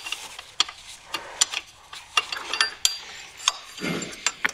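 Irregular metallic clicks and clinks of hand tools on bolts and brackets in a car's engine bay as a bolt is loosened.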